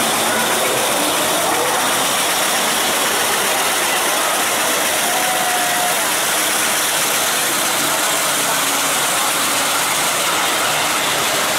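Suspended coaster car rolling along its track through an indoor dark-ride section: a steady mechanical running noise with a lot of hiss.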